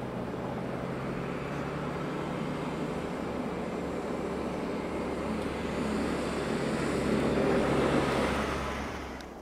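Camouflaged test cars driving past on a snowy road: a steady engine hum with tyre noise. It grows louder as a BMW sedan passes close, loudest about eight seconds in, then falls away and cuts off near the end.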